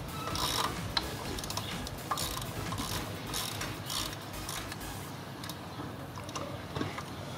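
A 10 mm ratcheting wrench clicking as it backs a nut off an engine bracket. The clicking comes in repeated strokes for about the first five seconds, then thins to a few scattered clicks.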